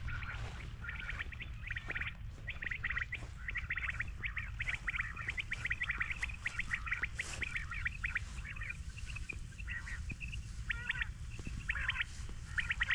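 Birds chattering: quick runs of short, repeated calls, one after another with only brief pauses, over a steady low rumble.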